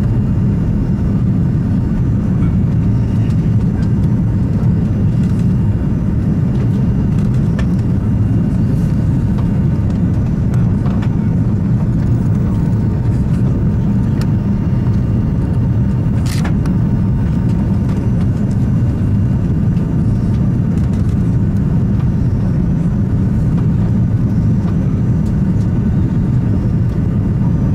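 Steady low rumble of engine and airflow noise inside the cabin of an Airbus A340-300 with its four CFM56 turbofans, heard from a window seat over the wing while the airliner is on approach. A single brief click sounds about sixteen seconds in.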